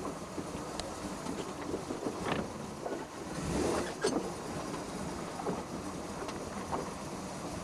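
Motorboat running on the water, with water splashing against the hull and wind buffeting the microphone; a brief rushing swell comes about three and a half seconds in.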